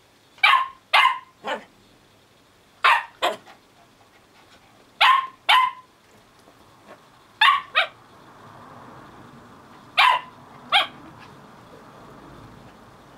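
Small dog barking in play, sharp high barks in quick pairs with a triple at the start, about eleven in all, with pauses of one to two seconds between the groups.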